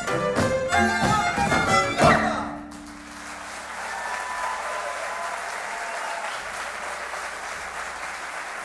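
Folk band with fiddles playing its final bars, ending on a loud closing chord about two seconds in that rings out briefly. Then the audience applauds steadily.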